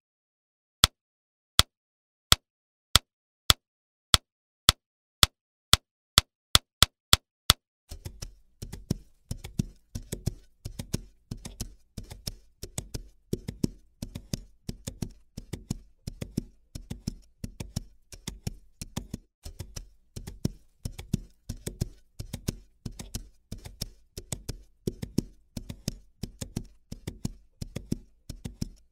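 Sharp single clicks, at first about one every 0.7 s and coming steadily faster. About eight seconds in they give way to a dense, steady rhythm of clicks and knocks over low thuds.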